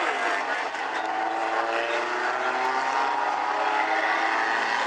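Engines of a field of Bumblebee-class race cars running together as they circle the track: a steady drone of several overlapping engine tones that grows slightly louder.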